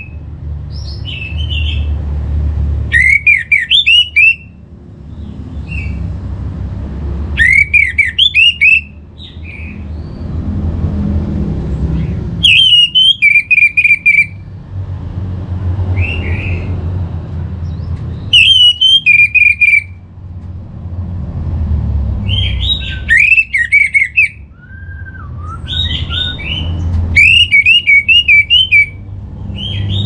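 Orange-headed thrush singing six loud phrases, each a quick run of rising and falling notes, about every four to five seconds, with softer single calls between phrases. A low rumble sits underneath in the gaps.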